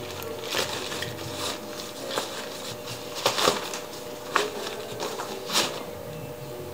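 Nylon fabric of a Deuter ACT Trail 28 SL backpack rustling and scuffing in a run of short, irregular handling noises as gear is pushed down into its top opening and the top drawcord is pulled up.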